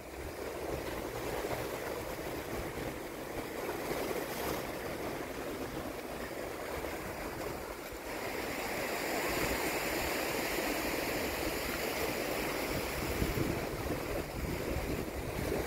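Sea surf washing over a rock breakwater: a steady rushing that gets a little louder about halfway through.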